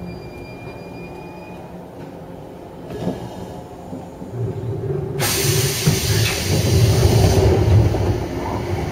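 JR 103-series commuter car arriving at a station, heard from inside: quiet running with a faint high squeal in the first two seconds, then a sudden loud hiss of compressed air about five seconds in that lasts a couple of seconds, over a low rumble.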